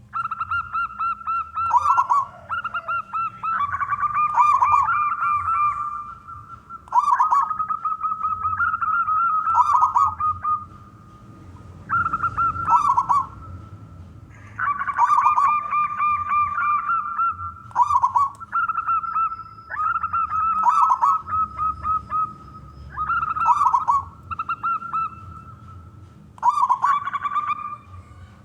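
Zebra doves (perkutut) cooing in repeated phrases, each opening with quick stuttering notes and running into a held, trilling coo; about a dozen phrases follow one another with short gaps, some overlapping.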